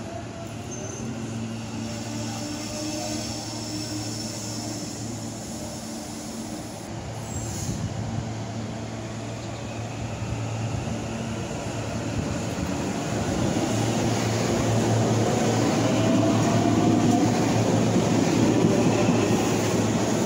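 SEPTA Silverliner IV electric multiple-unit train approaching along the platform and passing close by. Its steady electric hum and wheel noise grow louder as it nears. A higher whine comes in about two-thirds of the way through.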